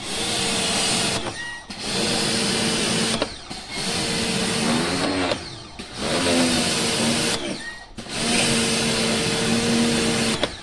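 Home pressure washer running in five short bursts, a steady motor hum under the hiss of the water jet spraying into a car's aircon evaporator, stopping briefly between bursts as the trigger is released.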